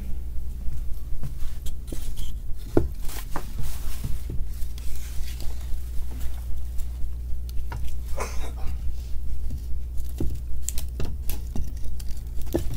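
Scattered metallic clinks and knocks from a stove's metal firebox door and fire tools as the fire is tended, over a steady low hum that throbs a few times a second.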